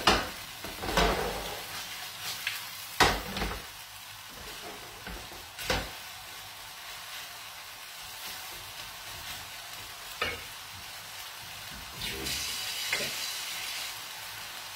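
Spaghetti sizzling steadily as they fry in an aluminium frying pan. Several sharp knocks and scrapes of a cooking utensil against the pan stand out over the sizzle.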